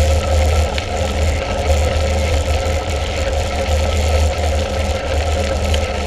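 Wind buffeting an action camera's microphone on a moving mountain bike, a fluctuating low rumble over the steady noise of tyres rolling on a gravel path, with a few faint clicks.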